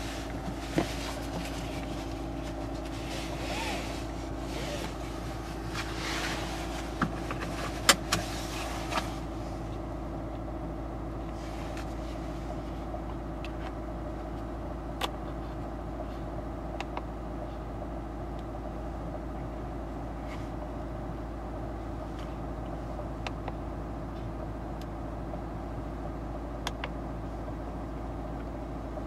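Seatbelt of a Honda Fit e:HEV pulled across with a rustle for the first nine seconds, then buckled with a few sharp clicks, the loudest about eight seconds in. Under it the car's steady hum while parked and running; later only a few light clicks.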